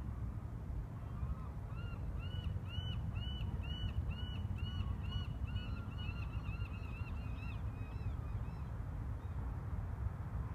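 A bird calling a long series of repeated, evenly spaced notes, about two a second, fading toward the end, over a steady low rumble.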